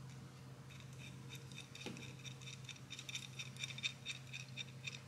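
Small metal clicks and light clinks with a short ring, growing busier in the second half, as the loosened rocker arm bolt is spun out by hand and the rocker arm is worked off an LS3 cylinder head. A steady low shop hum lies underneath.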